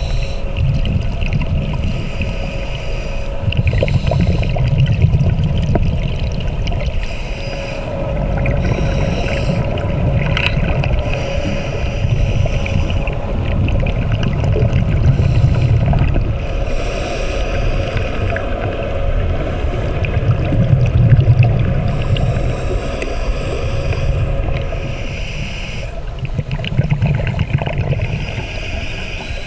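Scuba diver breathing through a regulator underwater: a hiss on each inhale and a low rumble of bubbles on each exhale, the cycle repeating every few seconds.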